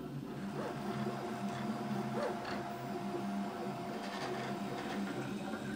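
Desktop FDM 3D printer printing, its stepper motors whining in several shifting tones as the print head moves, with a steady higher tone held through most of it and a couple of short rising chirps.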